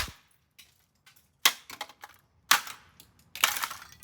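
Hard blows smashing the keypad panel of an Emerson microwave: four sharp strikes about a second apart, with smaller cracks and knocks between.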